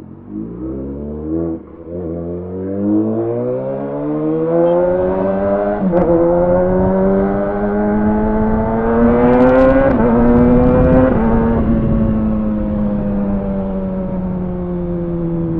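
Kawasaki Ninja ZX-6R's inline-four engine accelerating hard, its note climbing through the gears with upshifts about six and ten seconds in. Near the end it settles into a steady, slowly falling cruise.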